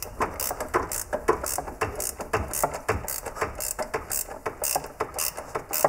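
Ratchet wrench with a 27 mm socket clicking in repeated strokes as it loosens the plastic oil filter housing cap.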